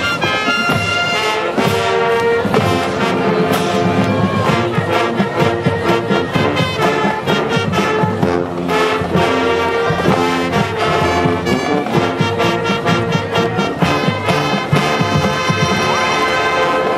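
High school marching band playing, with brass (trumpets and trombones) carrying the tune over a steady drum beat.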